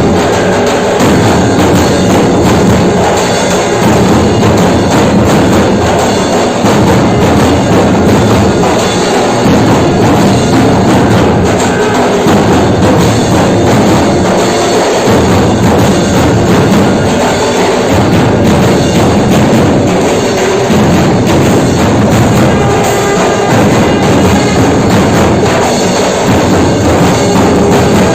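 Loud music with percussion and a steady beat.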